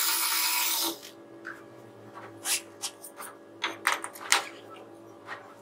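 Cordless drill running at speed, stopping about a second in. Then a string of light knocks and clicks follows as a plywood wheel is handled and fitted onto the frame.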